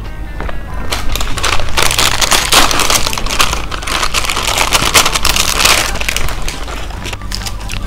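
Plastic-and-foil packet of seasoned seaweed snack being opened and its plastic tray pulled out, crinkling and crackling loudly from about a second in until near the end, when it dies down.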